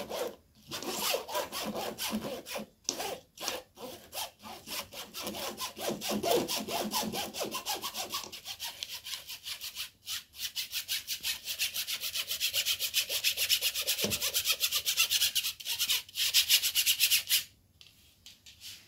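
A spoon rubbing and scraping flour through a mesh sieve into a stainless steel bowl, in rapid repeated strokes that grow faster and more even, then stop shortly before the end.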